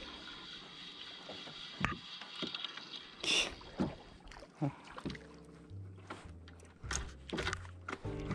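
Water splashing and slapping against a small FRP boat while a hooked lizardfish is reeled up to it, with several sharp knocks and a short splash about three seconds in. Background music comes back about halfway through.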